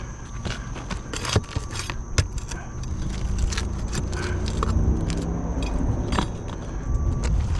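Metal clinking and jingling with a few sharp knocks, like roofing tools and nails being handled. A low rumble with an engine-like hum builds from about three seconds in, like a vehicle going by.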